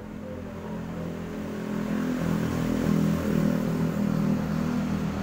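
A motor vehicle engine running steadily nearby, growing louder over the first few seconds and then holding.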